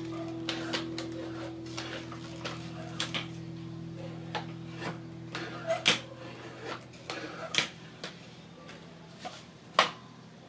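Irregular clicks, taps and light scrapes of wood and metal parts being handled on a workbench, with a few sharper knocks, the loudest about six and ten seconds in.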